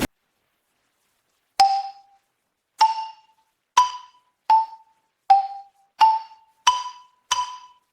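Mallet-struck bell-like notes, glockenspiel or xylophone style, played one at a time as a slow little tune: eight notes starting about a second and a half in, each ringing briefly and dying away, the pitch stepping up and down a little.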